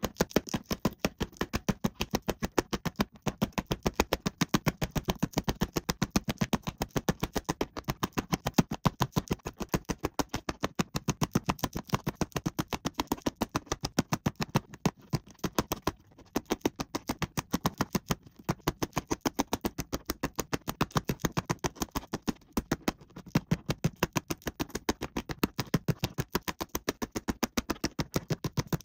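Plastic Lite-Brite pegs being pushed one after another into the holes of the pegboard, a fast run of small sharp plastic clicks, several a second, with a couple of brief pauses.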